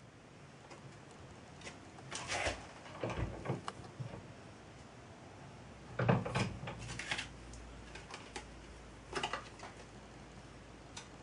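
Handling noises at a steel bench vise: a sheet of card rustling and a small metal part knocking against the vise jaws, in a few short bursts, the loudest about six seconds in as the part goes into the vise.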